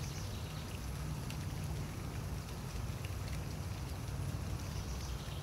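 Light rain falling, with a few faint scattered drop ticks over a steady low rumble.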